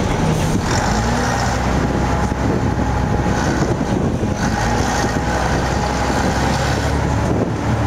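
Steady low rumble of vehicle engines.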